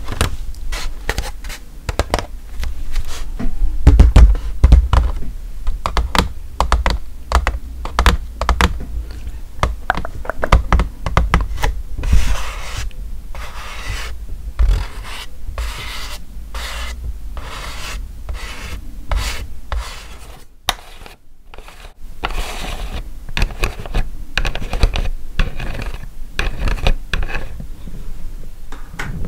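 Fingernails tapping and scratching on a plastic milk bottle held right at the microphone: quick taps with a few heavy knocks in the first half, then longer rasping scratch strokes.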